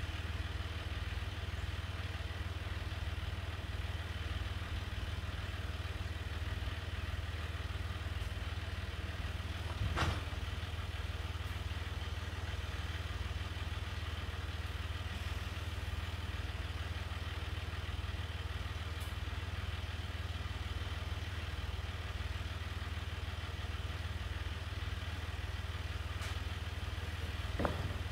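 Farm tractor engine idling steadily, with a sharp knock about ten seconds in and another near the end.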